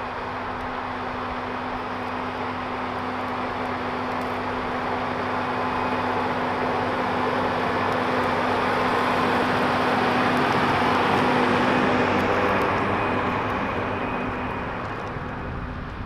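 Rába-Steiger 250 articulated tractor's diesel engine running steadily under the heavy load of pulling a subsoiler through the ground. It grows louder as the tractor comes close, loudest about ten to twelve seconds in, then fades as it moves away.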